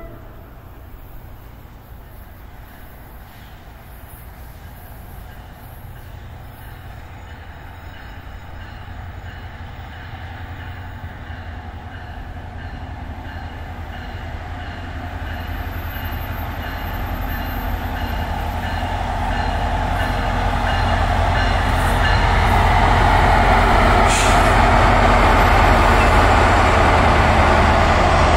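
NJ Transit passenger train approaching, growing steadily louder over about twenty seconds: a low rumble with the rush of wheels on the rails, loudest in the last few seconds.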